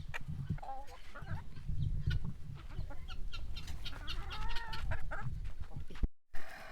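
Chickens clucking in short pitched calls over a low rumble. The sound cuts out briefly near the end.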